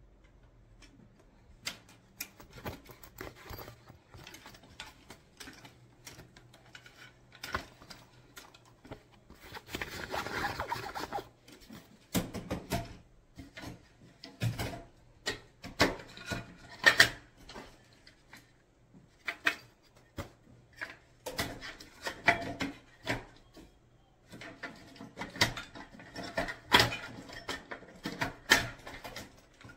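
ROCK CLOUD ultralight aluminum folding camp table being taken down by hand: its fabric top rustling and its aluminum frame poles clicking and knocking as the frame is folded. The clicks come irregularly, with a longer rustle about ten seconds in.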